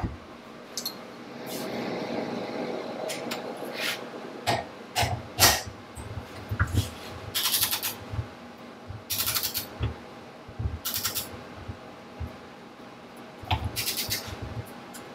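A few metal clinks as a Harley-Davidson Ironhead Sportster flywheel assembly is handled in a vise. Then a ratcheting torque wrench tightens a nut on the flywheel in four short ratcheting strokes, bringing it toward its torque setting.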